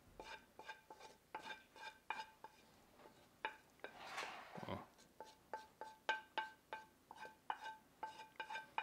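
A wooden spoon scraping black beans out of a skillet onto a glass dish, with many light clinks of the spoon and pan against the dishware, each ringing briefly at the same pitch, and a longer scrape about four seconds in.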